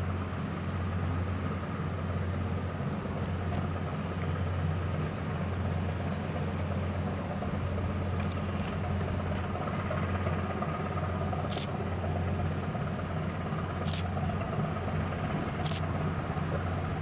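Passing small coastal tanker's diesel engine running with a steady low rumble. Three sharp ticks come in the second half.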